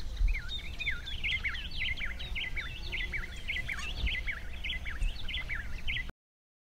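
Song of a South American cardinal (Paroaria): a rapid, continuous run of short sliding whistled notes over a low background rumble. It cuts off abruptly about six seconds in.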